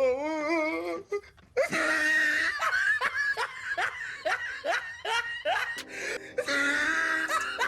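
A person laughing: a wavering drawn-out note, then a run of quick 'ha' bursts falling in pitch, about nine in all. Music comes in near the end.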